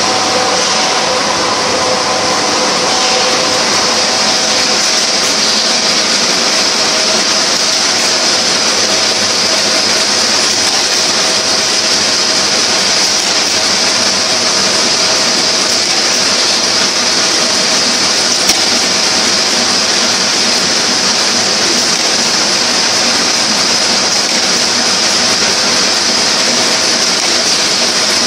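Chocolate-coated wafer production line running: a steady, loud mechanical hum and hiss from its conveyor belts and enclosed cooling tunnel, with faint steady tones underneath and a single click about two-thirds of the way in.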